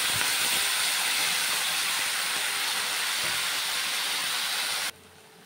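Wet ground spice paste sizzling hard in hot oil in a frying pan, a loud steady hiss that eases slightly and cuts off suddenly near the end.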